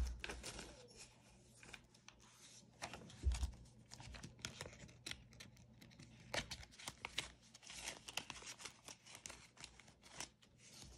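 Paper banknotes and cash envelopes being handled: faint, irregular rustling, crinkling and flicking of bills as they are counted and stuffed, with a couple of soft thumps.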